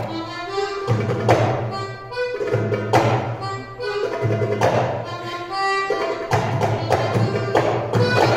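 Live accordion and hand-drum music: the accordion plays a sustained, ornamented melody while the drum marks the rhythm with sharp strokes every second or two.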